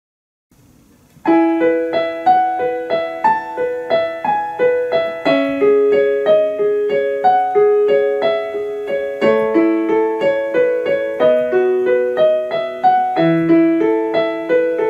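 Solo piano playing a slow song's introduction: a gentle, flowing broken-chord figure of about three notes a second, beginning a little over a second in.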